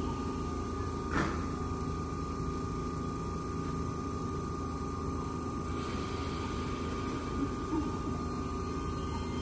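Keihan 13000 series electric train standing at the platform, its on-board equipment humming steadily with a steady high whine over it. A single click about a second in, and a soft hiss joins about six seconds in.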